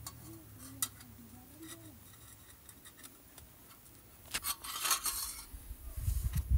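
Scattered faint clicks, then a louder stretch of rustling, scraping and knocking over the last two seconds or so.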